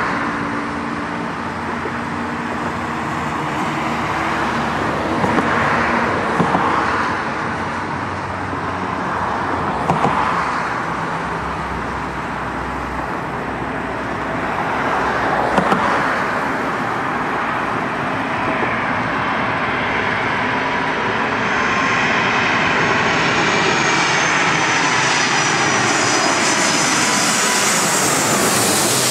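Twin-engine widebody jet airliner on final approach, its engine whine growing louder from about two-thirds of the way through as it comes in low overhead, over a steady hum of road traffic.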